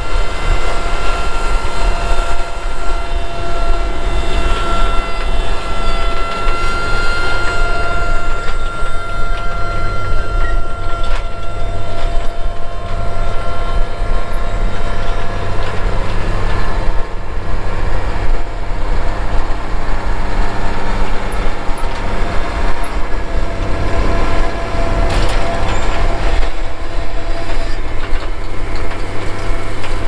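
Case IH Magnum tractor's diesel engine running steadily under load as it pulls a corn planter across the field, a low rumble under a steady high whine.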